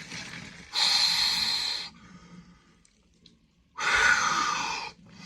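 A person taking two long, forceful breaths about three seconds apart, each a hissing rush of air lasting about a second, during deep breathing in an ice bath.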